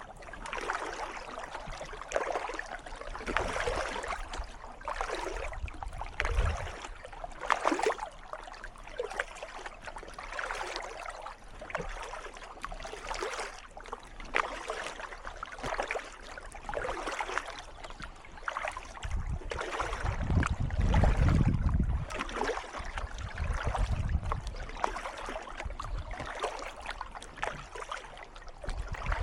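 Kayak paddle strokes, the blades dipping and splashing into calm water about once a second or so, with water trickling off the blade between strokes. A louder low rumble comes about two-thirds of the way through.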